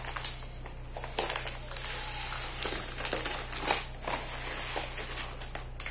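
Plastic packet of dry couscous crinkling as it is torn open and handled, with the grains pouring and pattering out onto a ceramic plate.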